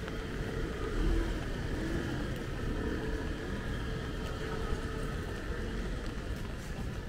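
A motor vehicle's engine running close by: a steady hum over a low rumble, swelling briefly about a second in.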